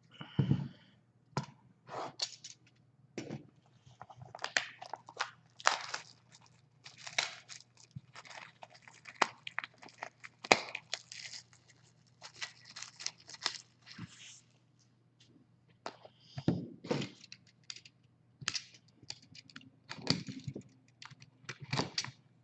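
Trading-card pack wrappers being slit with a razor blade and torn open, crinkling and tearing in irregular bursts.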